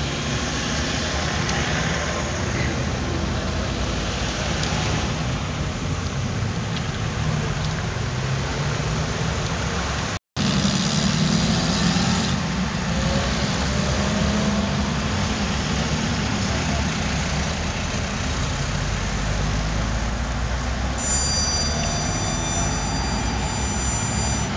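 Street traffic noise from cars passing and running on a wide city road. It cuts out for a moment about ten seconds in.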